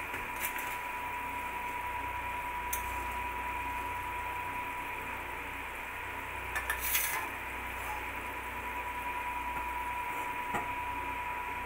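Tamarind fish curry simmering in an aluminium kadai on a gas stove, a steady hiss with a few light clinks. A steel plate clinks onto the pan as a lid near the end.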